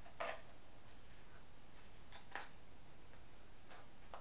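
Quiet handling of a small cardboard bracelet loom and its threads: a few soft ticks as strings are moved between the slots, over a steady low room hiss.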